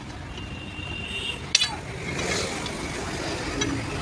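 A sharp metallic clink about one and a half seconds in, metal parts knocking together during truck gearbox work, preceded by a thin high ringing tone lasting about a second, over steady workshop background noise.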